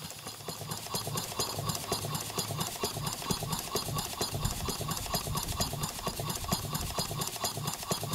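Small model steam engine running on compressed air, its exhaust chuffing in a rapid, even beat with mechanical clatter.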